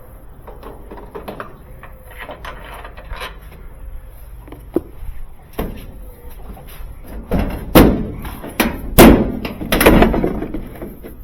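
Handling noise on a clothes dryer's metal cabinet: light clicks and knocks, then a run of loud bangs and knocks in the last few seconds.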